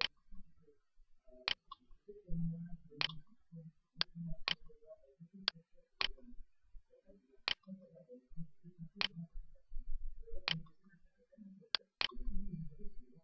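Sharp single clicks, most about one and a half seconds apart with a few extra ones in between, over a faint low murmur.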